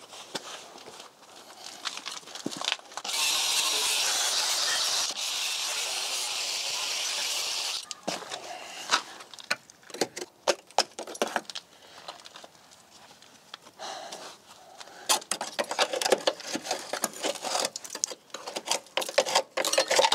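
Compressed-air blow gun hissing steadily for about five seconds, then a run of short clicks, rattles and scrapes as loose rust and debris are blasted and poked out of a rotted-through car sill and jacking point.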